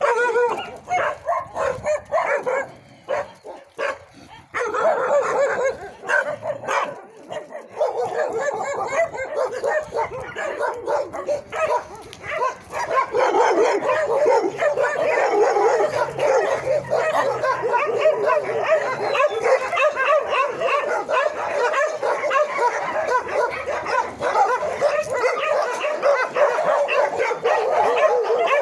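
Many dogs barking and yelping at once in an overlapping chorus. It is patchy for the first few seconds, then runs continuously and grows denser and louder about twelve seconds in.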